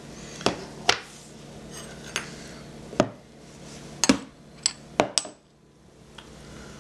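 Scattered clinks and knocks, about seven in all: a metal spoon tapping and scraping a small glass bowl of thick blended dressing, and a plastic blender cup being handled.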